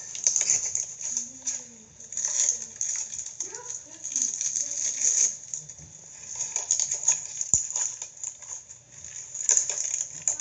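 Glittery clear slime being poked and squished by hand, making bursts of small sticky clicks and crackling pops.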